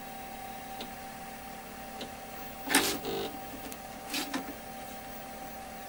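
Osborne 1's 5¼-inch floppy drive running as it boots CP/M: a steady hum with scattered mechanical clicks, and a louder clatter a little before halfway. Its keyboard keys are pressed about two-thirds through.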